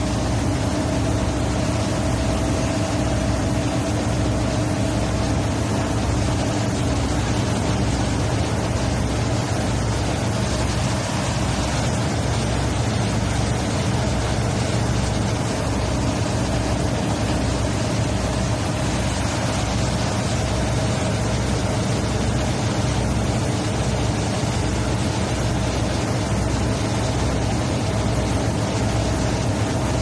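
A large boat's engine running steadily, a low drone with a constant hum, under the loud, even rush of churning wake water behind the stern.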